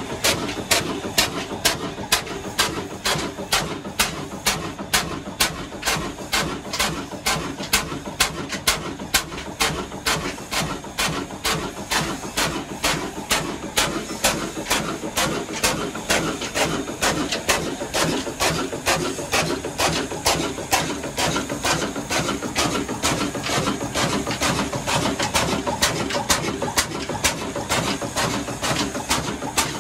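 Old horizontal diesel oil engine ('black engine') running steadily just after start-up, with an even, rhythmic beat of sharp firing knocks a little over two a second.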